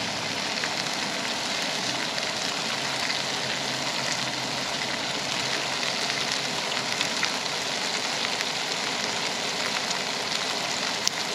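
Raw ground-beef patties frying in a hot non-stick pan over a propane camp stove: a steady crackling sizzle. A sharp click near the end.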